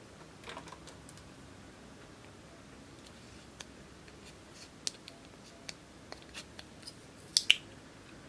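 Scattered small, sharp clicks and taps, with the loudest two close together near the end.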